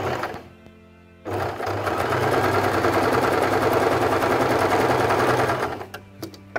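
Small white electric sewing machine stitching patchwork strips: a brief run at the start, then a steady run of several seconds that stops near the end, followed by a few light clicks. Faint background music underneath.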